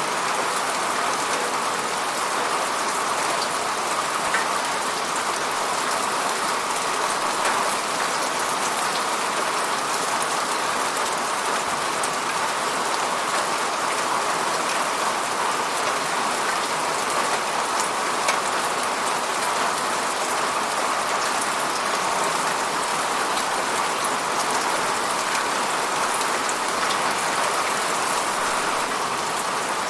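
Steady falling rain: an even hiss of many drops on a surface, with scattered fine drop ticks throughout.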